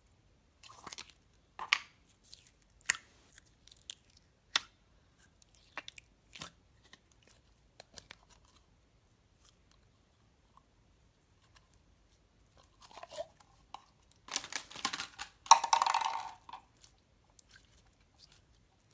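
Plastic slime containers handled, giving a few sharp clicks and taps over the first several seconds. Then, about fourteen seconds in, the loudest part: two seconds of wet crackling and squelching as soft clear slime is squeezed and mixed by hand.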